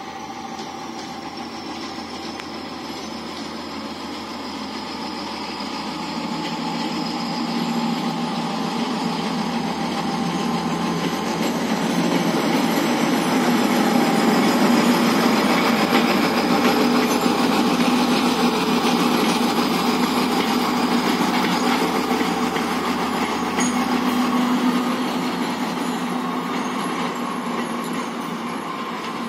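Two coupled TGM4-series diesel-hydraulic shunting locomotives running past on the track. Their diesel engine drone grows louder as they approach, peaks about halfway through as they pass close, then fades as they move away.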